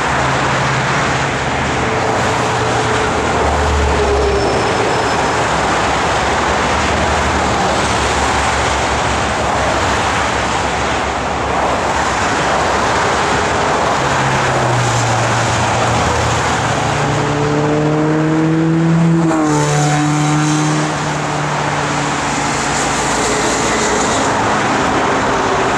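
Steady multi-lane freeway traffic: the continuous rush of tyres and engines from many cars passing below. About nineteen seconds in, one vehicle passes close and its engine tone drops in pitch as it goes by.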